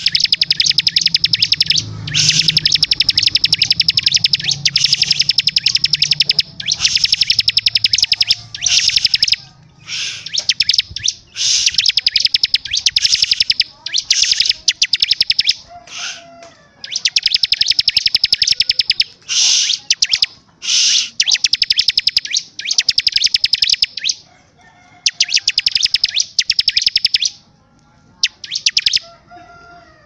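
Bar-winged prinia (ciblek) singing in bouts of fast rattling trills of high notes. Each bout lasts a second to a few seconds, and they follow one another with short breaks.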